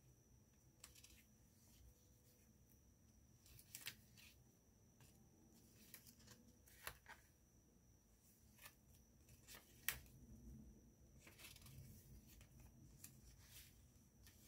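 Faint, scattered rustles and light taps of paper pages and card tags being handled and turned, with one sharper click about ten seconds in.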